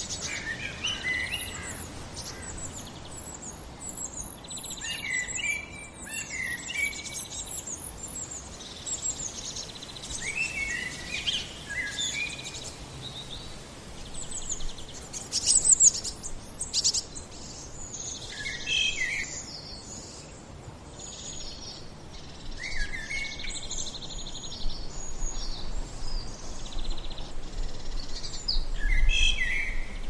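Several small songbirds singing in woodland, short chirping phrases overlapping one another, with a fast, high trill in the first several seconds. A low rumble swells near the end.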